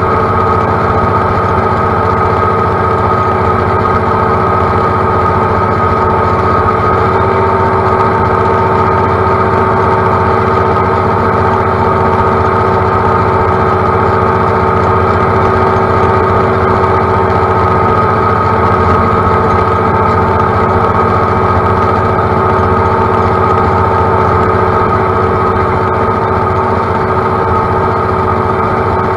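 John Deere utility tractor's diesel engine running steadily at working speed while mowing tall grass, with a constant hum and whine and no change in pace.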